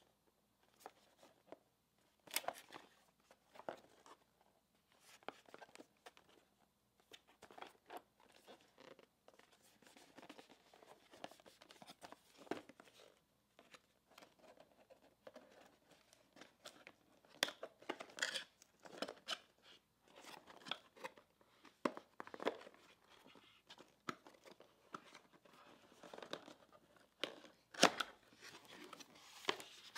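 A small cardboard product box being handled and opened by hand on a wooden tabletop: irregular taps, scrapes and rustles, with tape and cardboard being torn. It gets busier and louder in the second half.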